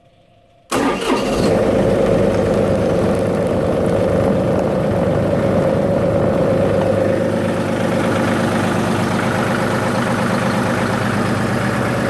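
John Deere 3038E compact tractor's three-cylinder diesel engine firing almost at once, about a second in, then running steadily. It fires right to life now that the dirty crank position sensor and its connector have been cleaned, curing the hit-and-miss crank-no-start fault.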